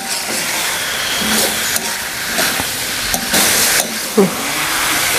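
Tofu and green chillies sizzling in a hot metal wok, with a steady hiss while a metal spatula stirs and scrapes through them. The hiss swells briefly a little over three seconds in.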